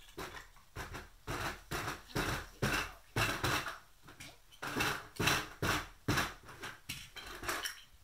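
Plastic Lego Duplo blocks clattering and knocking against each other as they are handled and rummaged: a quick, irregular run of clicks and knocks.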